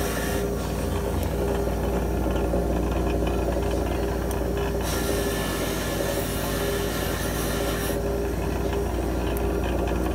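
6-inch bench grinder running, with a small metal part held in locking pliers against the spinning wheel. It makes a steady motor hum under a rough scraping rasp, and the high hiss drops back at times as the part is eased off the wheel.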